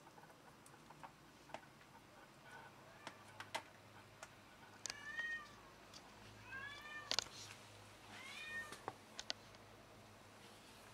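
A cat meowing three times, short calls that rise and fall, a second or two apart, with scattered sharp clicks.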